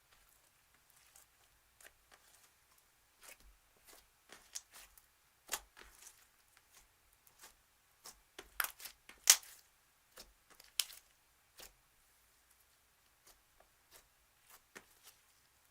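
Slime being worked by hand, giving irregular sticky clicks and pops with quiet gaps between them, and a louder run of pops a little past halfway.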